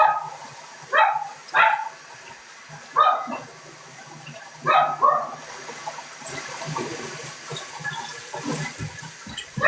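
A dog barking in short single barks, about six in the first five seconds and one more at the end. Between these there is a softer rushing, hissing noise in the second half.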